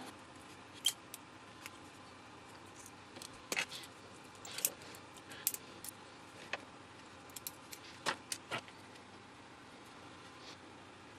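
Irregular light clicks and scrapes of metal tweezers picking at and prying apart a small plastic electrochemical gas sensor held in the hand.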